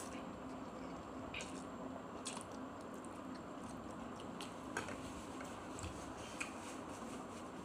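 A person chewing and slurping instant noodles, with short wet mouth clicks a few times, faint over a steady low hum.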